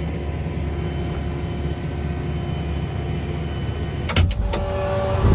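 Tractor engine droning steadily as heard inside the cab. A few sharp clicks come about four seconds in, after which the engine sound is slightly louder with stronger steady tones.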